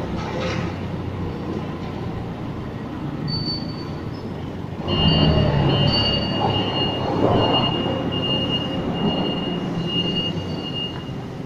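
Forklift working with its engine running; about five seconds in it gets louder and a high-pitched squeal sets in, holding with short breaks until near the end.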